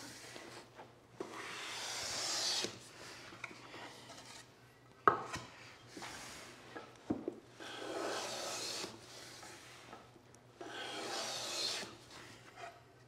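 Hand plane run on its side along a shooting board, shaving the edge of a wooden board: three long planing strokes. A sharp knock comes about five seconds in and a lighter one about two seconds later.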